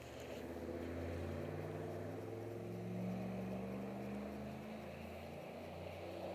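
An engine running at low, steady speed, its pitch drifting slightly up and down.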